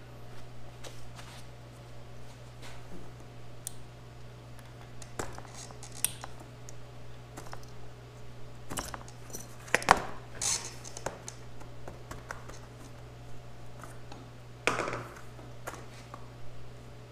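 Hands rummaging inside a plastic bucket part-filled with granular debris: scattered scratches, clicks and rustles of the grit and the bucket wall, louder about nine to eleven seconds in and again near fifteen seconds. A steady low hum runs underneath.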